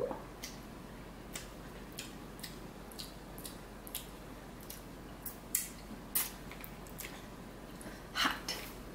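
Close-up mouth sounds of someone eating noodle soup: a brief sip of broth at the start, then a string of soft, wet mouth clicks and lip smacks while tasting and swallowing. About eight seconds in come a few breathy hisses of air drawn through the teeth at the heat of the broth.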